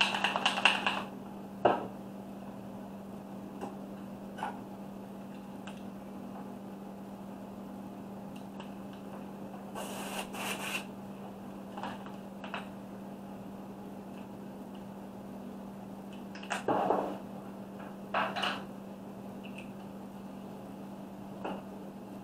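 A steady low hum under scattered workbench handling noises: small knocks and scrapes as paint bottles and an airbrush are picked up and set down, with a short hiss about ten seconds in.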